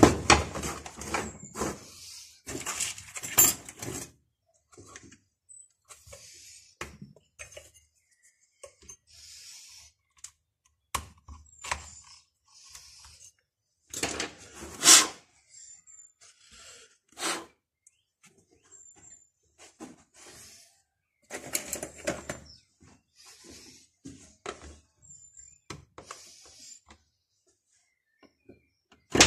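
Handling noises as a Zomax chainsaw is taken apart on a steel workbench: scattered clicks, knocks and scrapes of plastic covers coming off and screws and small metal parts being set down on the bench top, with a louder knock about fifteen seconds in. The saw is being stripped to reach its torn anti-vibration mounts.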